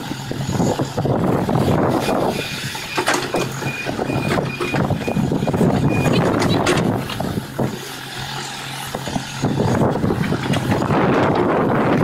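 Large hydraulic excavator's diesel engine running under load as the boom and ripper attachment move, the engine level rising and falling with the work, with a few knocks.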